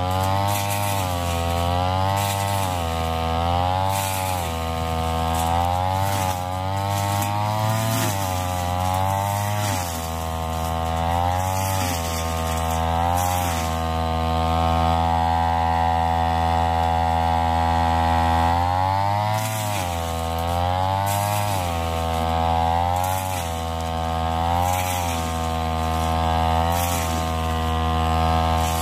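Backpack brush cutter's small engine running under load while cutting tall grass. The revs rise and fall every second or two as the throttle is worked, and hold steady at high revs for a few seconds in the middle.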